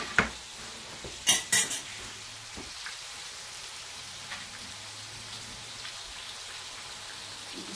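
Ground-beef patties frying in a hot pan: a steady sizzle, with a few sharp clacks of utensils or pans in the first couple of seconds.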